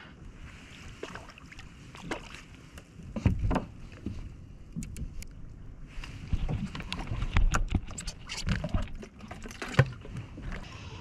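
Irregular clicks, rattles and knocks of fishing gear being handled on a kayak, with low thumps against the hull; the loudest knocks come about three seconds in and near the end.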